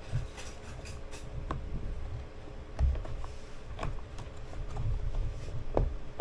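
Irregular light clicks and taps with low rumbling handling noise, from a newly unboxed spinning reel and its packaging being turned over in the hands.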